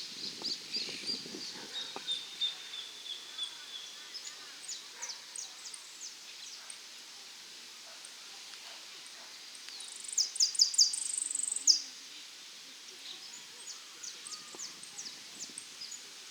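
Saffron finch (dorado) singing in short, scattered high chirps. About ten seconds in comes a louder, rapid phrase of repeated notes lasting under two seconds.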